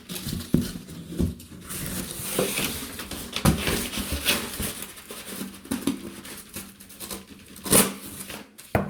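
A sheet of cardboard being handled and shifted: irregular scraping and rustling with scattered light knocks, a longer hissing scrape about two seconds in and a sharper knock near the end.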